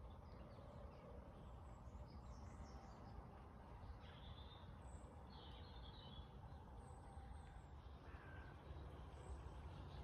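Faint outdoor garden ambience: a steady low rumble with a few short, distant bird calls scattered through it.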